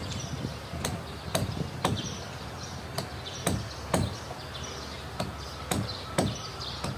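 Hammer blows on the wooden planking of a boat hull under construction: sharp knocks, mostly in twos and threes about half a second apart, with pauses of a second or more between the groups.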